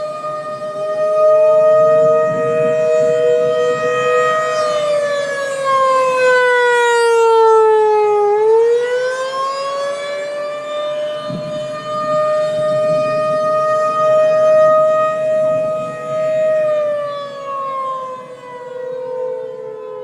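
Outdoor tornado warning siren wailing: two steady tones held together that slide down in pitch about eight seconds in, climb back up and hold, then begin falling again near the end.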